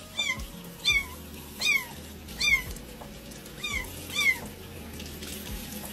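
A tiny kitten crying: about six short, high-pitched meows, each falling in pitch, coming every half second to a second and stopping about four and a half seconds in. The kitten is protesting being washed.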